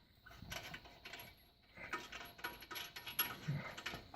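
Irregular metallic clinking and scraping as a car wheel is fitted back onto the hub and its lug nuts are handled and threaded on.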